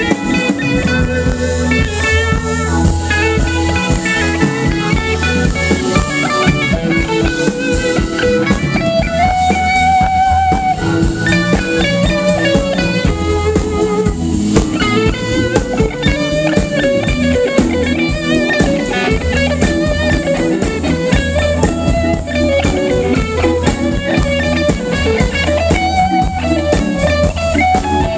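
Live blues-rock band playing an instrumental: an electric guitar leads with notes that bend up and down, over a drum kit and keyboard.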